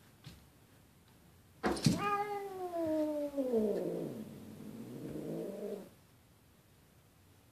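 Domestic cat giving a long drawn-out yowl, a threat call at a rival cat. It opens with a sudden sharp burst about a second and a half in, falls steadily in pitch into a low growling note, and cuts off about six seconds in.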